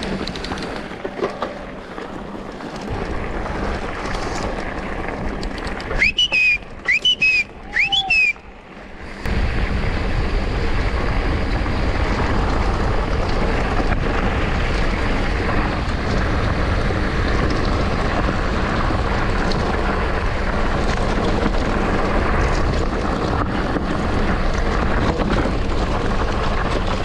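Mountain bike rolling over a gravel track, wind buffeting the microphone over tyre rumble, growing to a loud, steady rush from about nine seconds in as the bike picks up speed. A few short high squeals come shortly before the rush.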